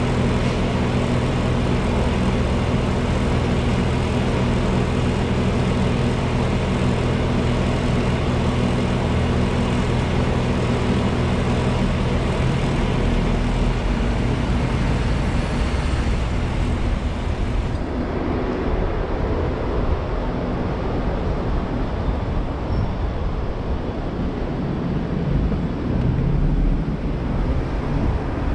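City road traffic heard from a car: an even rush of traffic noise with a steady low engine hum. About two-thirds of the way through, the sound changes abruptly, losing its high hiss and the steady hum.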